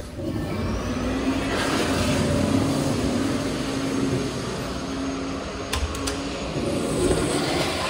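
Commercial toilet flushing through its automatic sensor flushometer valve: a rush of water with a steady valve hum for about five seconds, then it tails off. Two sharp clicks come near the end.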